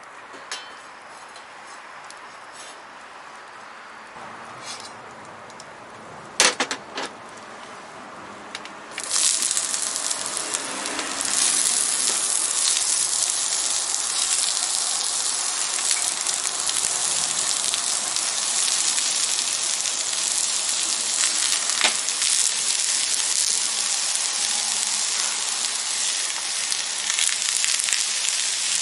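A sharp knock or two, then about nine seconds in chopped onions hit hot olive oil in a steel frying pan over a charcoal fire and start sizzling loudly, frying on steadily.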